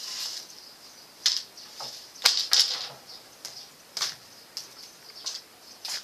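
Birds chirping in short, sharp calls, about six scattered through, over a steady high drone of insects.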